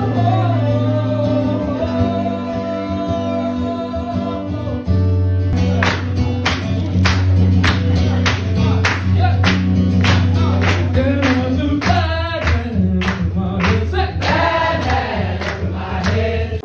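Live band with a singer, violin and guitar playing a song over a steady bass line; about five seconds in a regular beat of about two strikes a second comes in.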